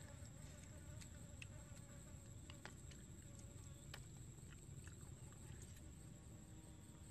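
Faint, near-silent outdoor quiet with an insect buzzing steadily and soft scattered clicks of someone chewing cooked squid.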